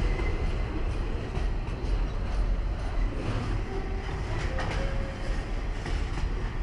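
Diesel freight train hauled by G-class and VL-class locomotives rolling past, a steady low rumble with wheel-on-rail noise.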